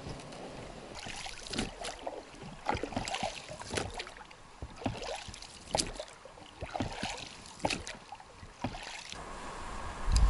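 Oars of an inflatable boat being rowed: the blades dip and splash in the water with short knocks, a stroke roughly every second.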